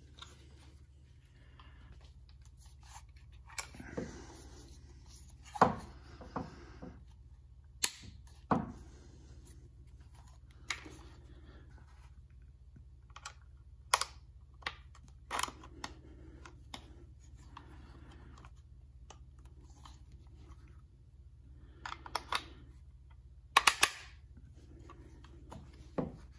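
Scattered sharp clicks and knocks of a Hi-Point 995TS 9mm carbine's polymer stock and steel parts being handled and put back together, a pin being fitted. The loudest is a quick double clack near the end.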